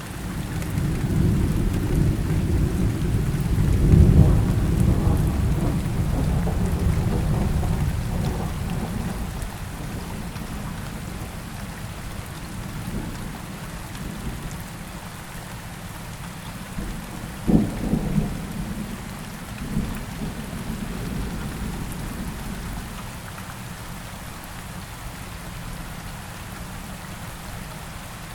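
Steady rain falling, with a long roll of thunder that swells to its loudest about four seconds in and then fades. Past the middle comes a sharp crack of thunder, with a smaller one soon after.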